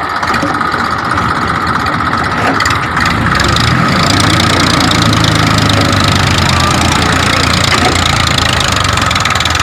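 Massey Ferguson 1035 DI tractor's diesel engine running hard under load, pulling on a tow chain. It grows louder, with a heavier low throb, about three seconds in.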